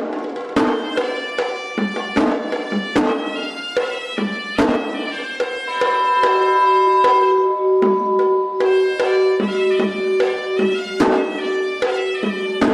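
Sri Lankan hevisi temple drumming: quick drum strokes under a horanewa, a reedy double-reed pipe, playing a melody that settles into one long held note from about halfway through.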